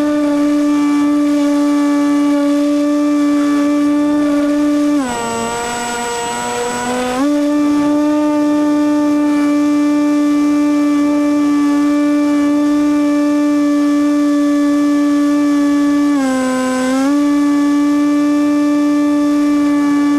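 RC model plane's motor and propeller, heard from an onboard camera, running at a steady high-pitched drone. The pitch drops for about two seconds some five seconds in and briefly again near the end as the throttle is eased, then climbs back.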